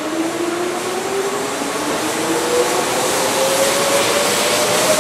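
Keihan electric express train pulling away from a station platform and gathering speed. A rising whine climbs steadily in pitch over the rumble of the wheels, getting louder as the cars pass.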